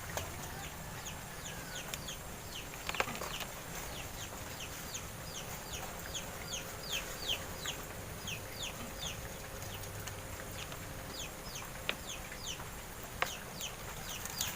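Birds chirping: a steady run of short, high, downward-sliding peeps, about two a second, with a couple of faint clicks.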